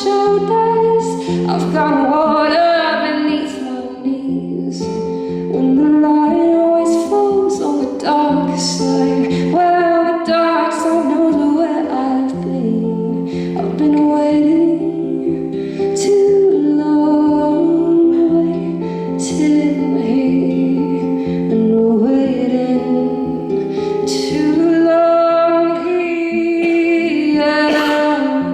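A woman singing a slow song over acoustic guitar.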